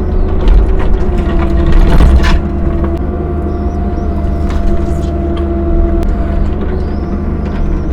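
CAT 305 mini excavator's diesel engine running under load with a steady whine from the machine, and knocking and scraping of the bucket in the first couple of seconds before it settles to a steadier run.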